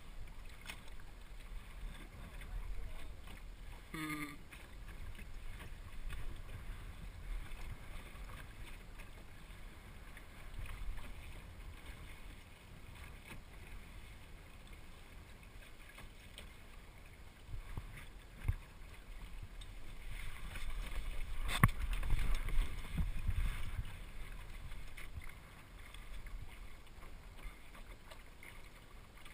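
Water sloshing and rushing along the hull of a small El Toro sailing dinghy under way, with wind rumbling on the microphone. There are a couple of sharp knocks past the middle, and the rush swells louder for a few seconds about three-quarters of the way through.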